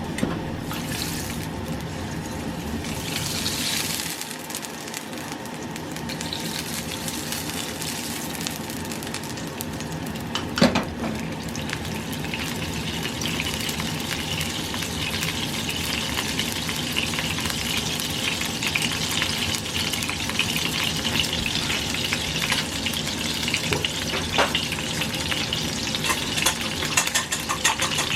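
Food sizzling in a hot frying pan. A single sharp clank of a utensil comes about a third of the way in. The sizzle grows fuller and crackles more in the second half.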